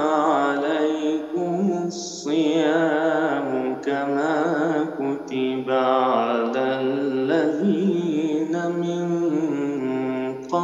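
A male reciter's solo voice chanting the Quran in melodic style, drawing out long ornamented, wavering phrases and pausing briefly for breath about two seconds in and near the end. The voice comes over a video-call link.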